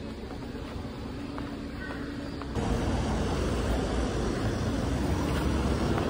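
Street noise: a steady low rumble of traffic, which jumps louder about two and a half seconds in.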